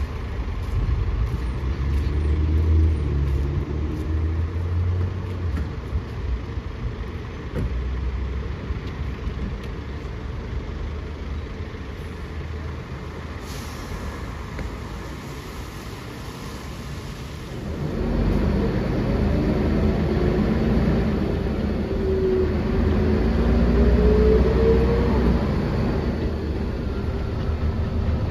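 A 1999 Volvo B10L bus's diesel engine, heard from inside the cabin, pulls along and then drops to a quieter hum for several seconds. A hiss of air follows, then the engine pulls away again with rising pitch, getting louder toward the end.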